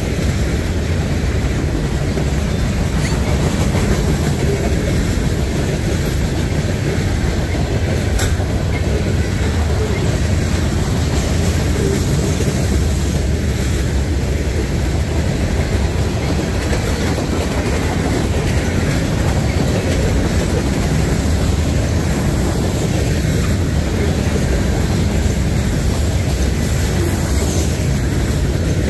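Norfolk Southern freight train rolling past at track side: a steady, loud noise of steel wheels on rail that holds level throughout.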